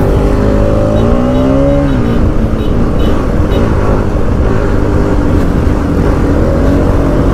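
Motorcycle engine running under way, its pitch rising from about a second in and dropping back near two seconds as the throttle is opened and eased, then holding steady over a constant rushing noise.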